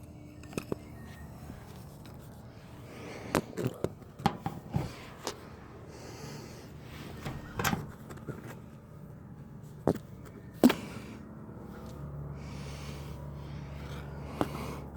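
Irregular handling clicks and knocks, a few sharp ones, the loudest about two-thirds of the way through, with a low steady hum coming in near the end.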